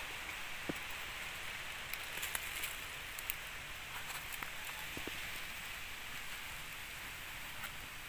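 Steady hiss of forest background with scattered faint crackles and rustles of dry leaf litter as a snared dove shifts and spreads its wings on the ground.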